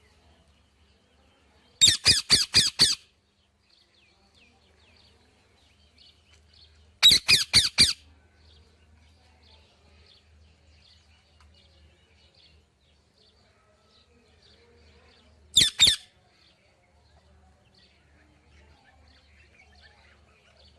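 A parrot squawking in three loud bursts of rapid, harsh calls: about five calls at around two seconds in, five more at about seven seconds, and a short pair near sixteen seconds. Faint chirps continue in between.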